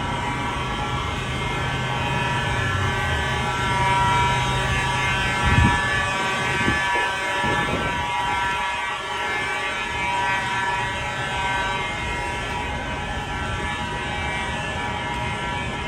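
Fire alarm horns sounding steadily, several at once, giving a chord of steady tones. A low hum underneath stops about five seconds in, followed by a few dull thumps.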